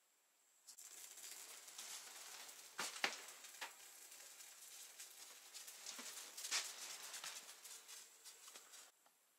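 Rustling and handling noise with scattered clicks and knocks as someone moves at the cabin door and a dog comes in from the snow; the loudest clicks fall about three seconds in and again about six and a half seconds in, and the sound cuts off suddenly near the end.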